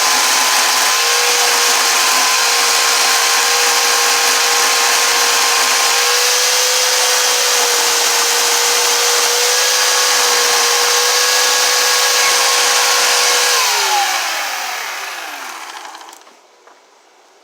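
A handheld power tool gouging into wood, its motor running at a steady high pitch. About 13 seconds in it is switched off and its pitch falls away as it winds down to a stop.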